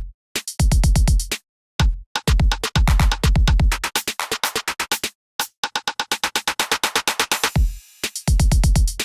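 Drum-machine samples: fast rolls of deep electronic kick-drum hits, several bursts broken by short gaps, with a brief hiss-like noise sweep near the end.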